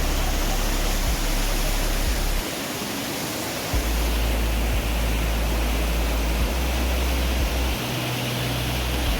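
Steady loud rush of a monsoon-swollen waterfall pouring into the sea, with wind buffeting the microphone in low rumbles that drop out briefly twice.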